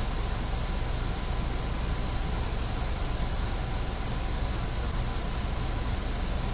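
Steady low hum with a hiss over it, unchanging throughout.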